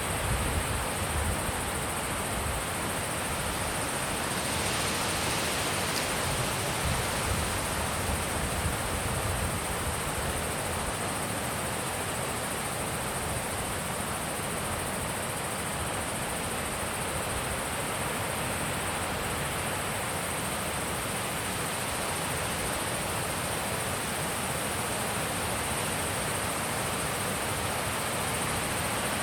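Wind blowing steadily, an even rushing hiss with a few low buffets on the microphone in the first several seconds. A thin, steady high-pitched hiss runs under it throughout.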